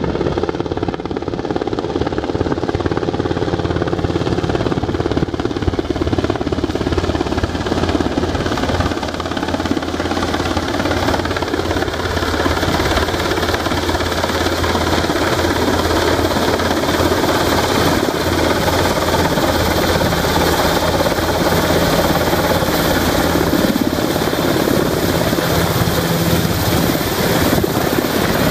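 Helicopter running nearby: a steady low hum under a loud, constant rushing noise.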